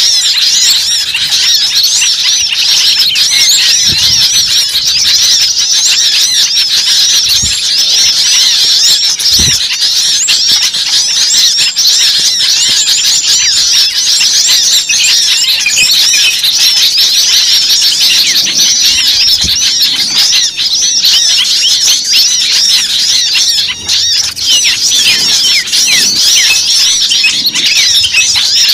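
A dense chorus of many small birds chirping all at once. Countless short, high chirps overlap into a loud, unbroken din.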